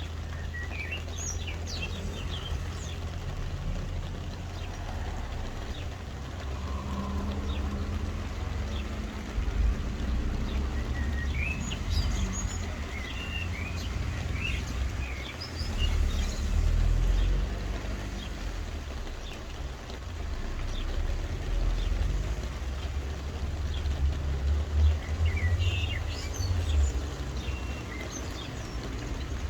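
Soft rain falling over a low steady rumble, with small birds chirping in short bursts at the start, around the middle and again near the end.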